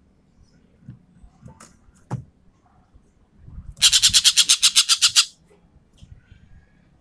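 Ekek keling bird giving a loud, fast, harsh rattle of about fourteen notes, about ten a second, lasting about a second and a half, starting about four seconds in. A few scattered single clicks and chips come before it.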